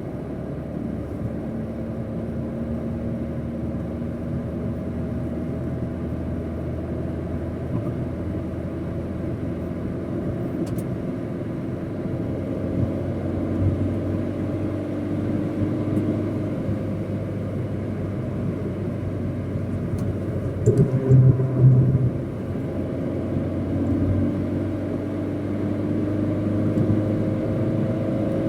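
Opel Corsa D engine running under way with its turbo failed and giving no boost. The engine note rises and falls gradually, with a brief louder rumble about 21 seconds in and a rising pitch near the end.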